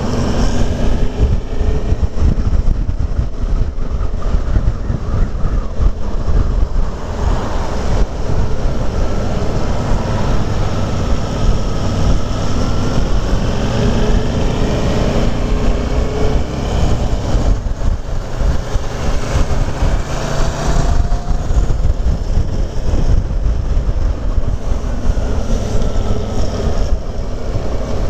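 Motorcycle on the move, with wind rushing over the microphone and the engine running underneath; the engine's pitch rises and falls a few times.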